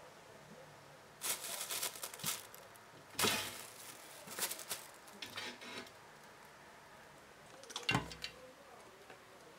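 Thin plastic bag crinkling and rustling in short bursts as a kitten paws and rolls against it, with a dull thud near the end.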